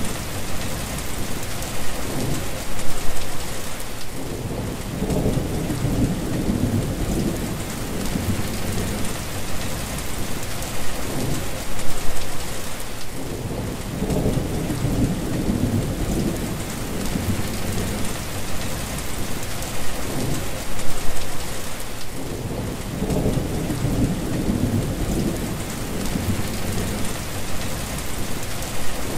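Heavy rain falling steadily on a wet road, with low thunder rumbling three times, roughly every nine seconds.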